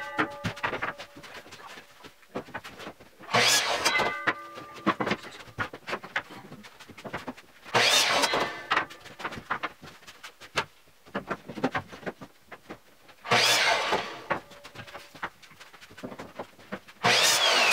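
Electric miter saw crosscutting pine boards to length, four cuts a few seconds apart. Each cut is a burst of about a second as the motor and blade go through the wood, followed by a ringing whine as the blade spins down. Light knocks of boards being handled come between the cuts.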